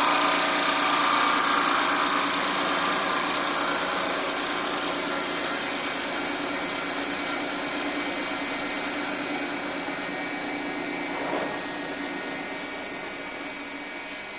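A woodworking power tool's motor running steadily, with a steady whine over a dense noise, slowly getting quieter, with a brief knock about 11 seconds in.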